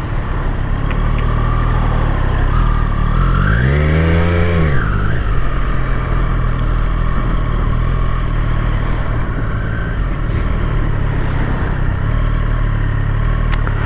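Triumph Street Triple RS's 765 cc three-cylinder engine running under way. About four seconds in it revs up and drops back down once, then settles to a steady run.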